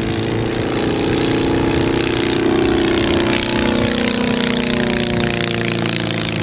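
Hummel UltraCruiser ultralight passing overhead, its Volkswagen-conversion four-stroke engine and propeller running steadily. The sound grows louder through the middle and its pitch sinks a little as the plane goes by.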